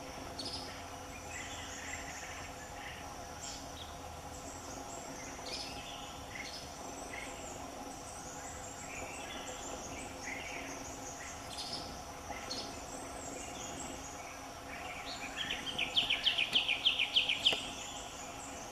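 Forest ambience: a steady high insect drone with birds calling now and then. About fifteen seconds in, a bird gives a rapid run of high notes, about eight a second for two seconds, the loudest sound here.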